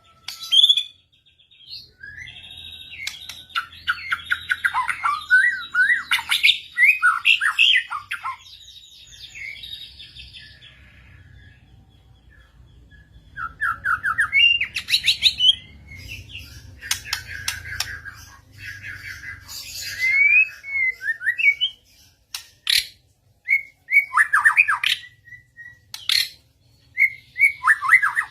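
Murai songbird singing loud, varied phrases of rapid whistles and chatter in bursts with short pauses, mixed with harsh, sharp notes, over a faint low hum.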